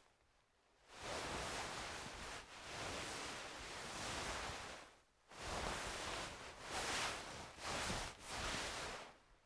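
Wool fabric being moved and rubbed, a soft rustling swish. After a short pause it starts about a second in with one long movement, then comes in several shorter strokes one after another.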